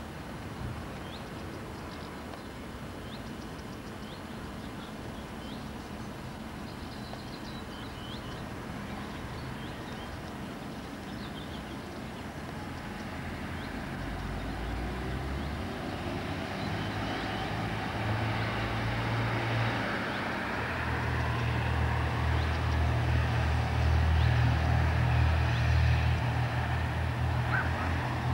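Outdoor ambience with birds chirping, then a heavy engine rumbling in from about halfway, growing steadily louder and changing pitch in steps, as a vehicle comes closer.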